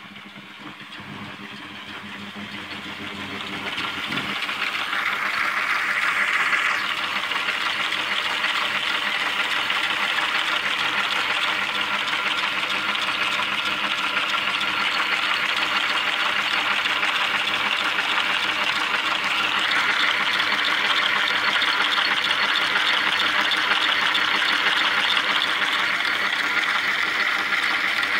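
An old lathe running under its electric motor, driving the belt pulley and a gear train that includes a freshly fitted 3D-printed plastic gear, with the transmission engaged to turn the lead screw. It makes a steady whirring, whining run that grows louder over the first several seconds, then holds even.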